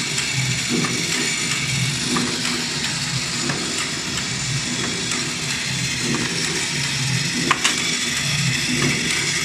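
Automatic flat-die thread rolling machine running at speed, rolling threads onto M10 bolts: a steady mechanical clatter and hum with a faint high whine, and a few sharp clicks.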